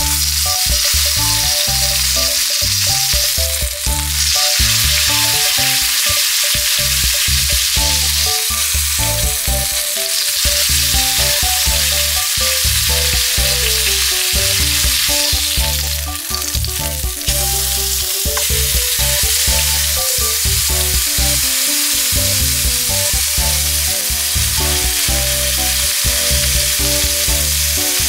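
Thick steak searing on its edge in hot fat and pan juices in a frying pan, held upright with tongs: a steady sizzle.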